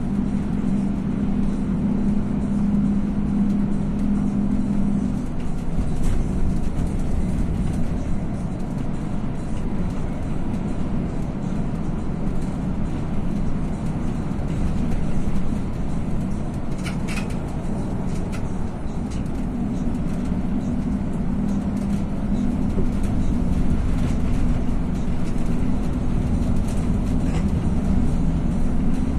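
Iveco bus cabin while driving at steady speed: steady engine drone and road rumble, with a steady hum that is stronger for the first five seconds and again in the last third. A few light clicks or rattles come a little past the middle.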